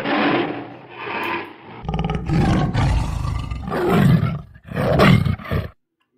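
Tiger roaring and growling: about five rough roars in a row with a deep rumble under them, cutting off abruptly near the end.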